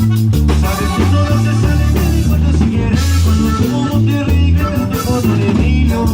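Live band playing an instrumental cumbia: a pulsing bass line and drum kit under sustained keyboard and guitar parts, no vocals.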